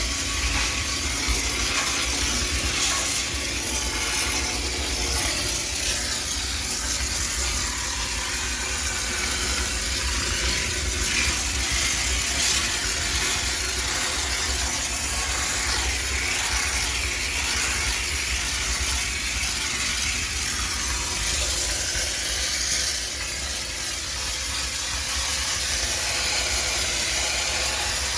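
High-pressure steam cleaner jetting steam with a steady hiss to sterilize a washing machine. A low rumble runs underneath, and the level dips briefly near the end.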